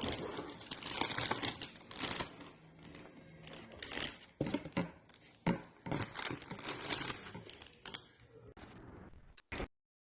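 Crinkling and rustling handling noise with scattered sharp clicks, stopping abruptly near the end.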